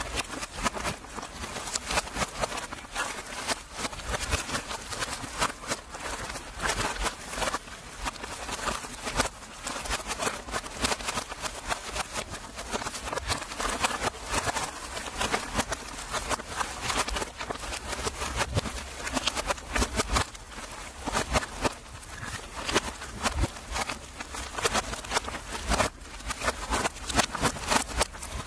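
Sotol heads being tossed into a steaming pit oven: a dense, irregular run of knocks, thuds and crackles as they land on the hot stones and on one another.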